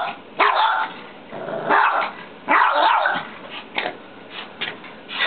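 Shih tzu barking in a few short bursts while playing with a toy.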